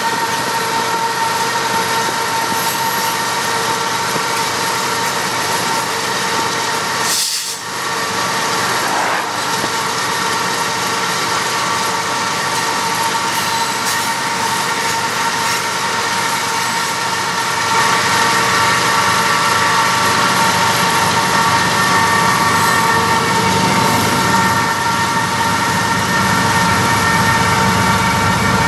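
Diesel-electric locomotives of a BNSF coal train running at speed, heard from a vehicle pacing alongside: a steady drone with several constant high whines. The sound drops out briefly about seven seconds in and gets louder from about two-thirds of the way through.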